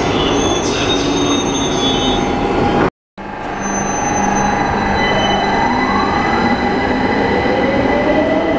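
London Underground Victoria line 2009 Stock train in a tube station, with steady wheel-on-rail and motor noise and a thin high squeal in the first couple of seconds. After a cut about three seconds in, another train runs with a motor whine that rises steadily in pitch.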